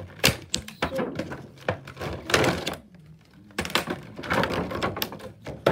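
Toy packaging being handled and opened by hand: a run of sharp clicks and knocks with longer stretches of rustling.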